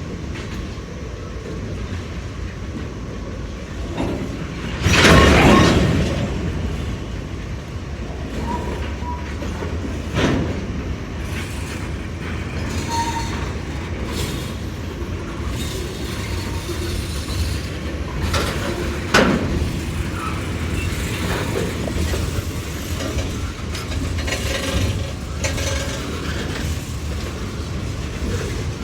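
Freight train cars rolling past on the rails with a steady rumble and clicking wheels. A loud metallic clank comes about five seconds in, and sharper single knocks follow around ten and nineteen seconds.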